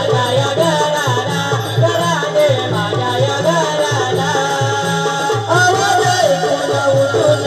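Live gavlan music for a Naman folk dance: a drum beats a steady rhythm under a wavering folk melody.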